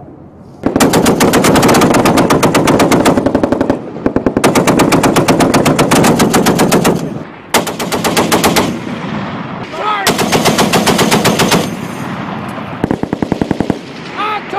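M2 .50-calibre heavy machine gun firing long bursts of automatic fire, several runs of two to three seconds each with brief breaks between them, then shorter bursts near the end.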